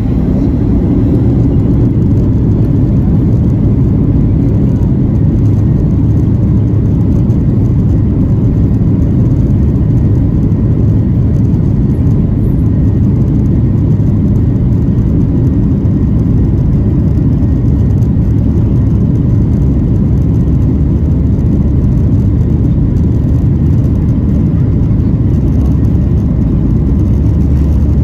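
Cabin noise of a Boeing 737-800 on its takeoff roll, heard from a window seat over the wing: its CFM56-7B turbofans at takeoff power and a steady, loud low rumble as the airliner speeds down the runway.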